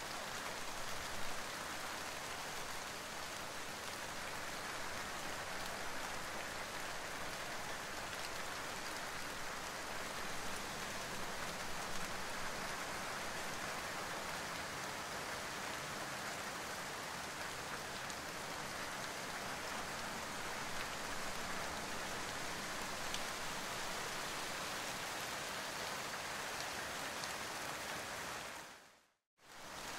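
Steady rain: an even hiss of falling drops with a few slightly louder patters. It fades out to a moment of silence about a second before the end and then starts again.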